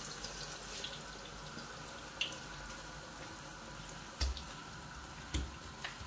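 Langoș dough deep-frying in a pan of very hot oil: a steady sizzle with occasional sharp pops. A few dull thumps come in the second half.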